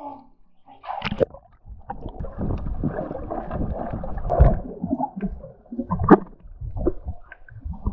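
Muffled underwater rumble of moving water and bubbles as a snorkeler dives down along the rocks, with irregular louder surges. A short splash about a second in as he ducks under.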